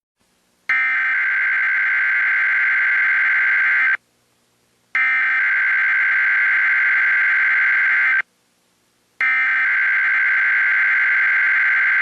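Emergency Alert System SAME header: three bursts of digital data tones, each about three seconds long with about a second of silence between them, opening a required weekly test.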